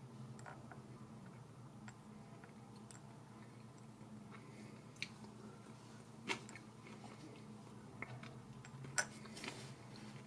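Tiny metal knife and fork clicking and scraping on a miniature ceramic plate as the last crumbs are scooped up, with soft chewing sounds. Sharper clinks come about six and about nine seconds in, the loudest near the end as the cutlery is laid on the plate.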